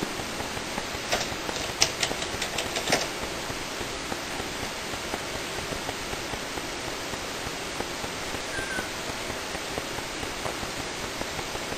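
A quick run of about seven light clicks from a computer keyboard between about one and three seconds in, then only a steady hiss.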